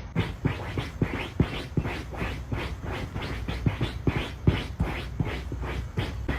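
Steady rhythmic scratching, about three strokes a second, each with a soft low thump, like claws raking repeatedly on a surface.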